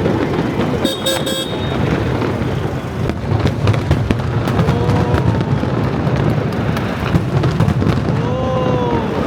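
Fireworks going off in a dense display: bangs and crackling over a steady rumble, with a few short whistling glides near the middle and near the end.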